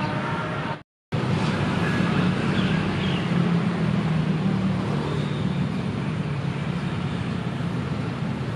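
Steady low rumble of engines and traffic, cutting out completely for a moment about a second in.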